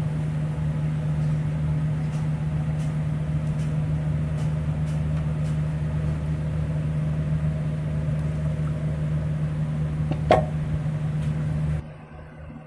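A steady low machine hum, with faint scrapes and clicks of a spoon working jamun juice through a mesh sieve and one short ringing clink about ten seconds in. The hum cuts off suddenly near the end.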